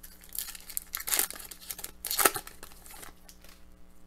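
Foil hockey-card pack wrapper crinkling and being torn open by hand, in a few bursts, the loudest about one and two seconds in.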